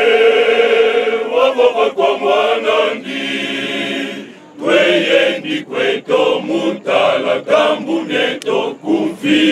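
A men's choir singing together in harmony. It opens on a long held chord and moves into a quieter held passage. After a short break about four and a half seconds in, it goes on in short rhythmic phrases.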